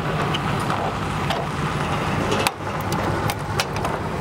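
Steel chain clamp being tensioned around a pipe by its hand tensioner, with several sharp metallic clicks, over a steady engine hum.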